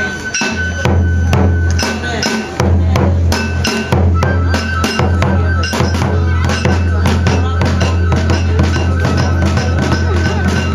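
Kagura accompaniment: a large taiko drum beaten in a quick, steady rhythm with clacking percussion strokes and a high held tone above. The held tone grows stronger about four seconds in.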